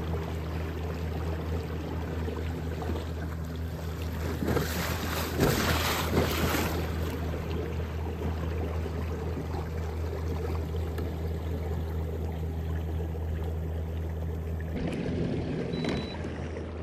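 Low, steady motor hum from a kayak moving at constant speed, with water swishing along the hull. A louder rush of water comes about four to six seconds in. The hum stops shortly before the end.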